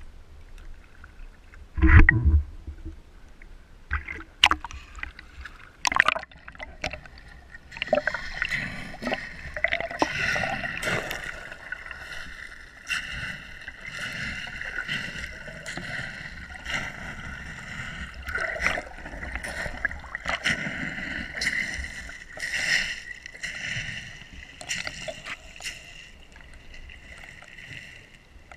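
Water heard through a GoPro held underwater: muffled gurgling and sloshing against the camera housing, with sharp knocks from the housing, a heavy one about two seconds in, as it is handled and plunged in during the first several seconds.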